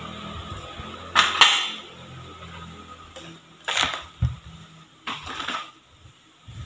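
Metal hand-mixer beaters knocked and clattered against a stainless steel mixing bowl, a few sharp clanks with the loudest about a second in. Near the end a silicone spatula scrapes the batter from the side of the bowl.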